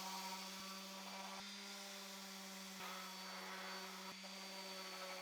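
Electric sander running with a steady, faint buzzing hum, sanding wood with 150-grit paper to level the glued joints.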